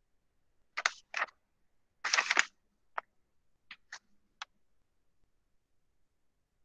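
Handling noise at a desk: two brief rustles and a longer one of about half a second, then four sharp single clicks spaced over about a second and a half.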